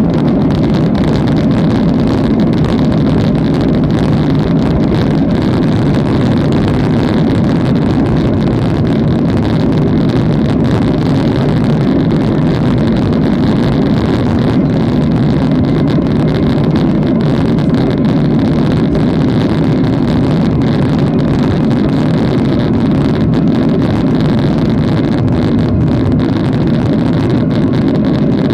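Steady engine and rushing-air noise of a Boeing 737-700 with CFM56-7B turbofans, heard inside the passenger cabin, a deep even rumble that does not change.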